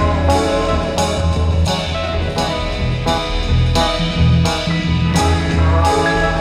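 Background music with a steady drum beat over bass and sustained instrumental notes.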